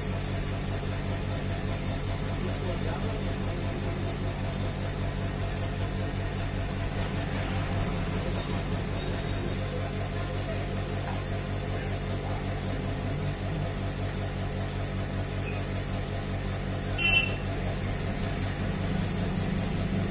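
A steady low machine hum with an even drone, and one short sharp click about seventeen seconds in.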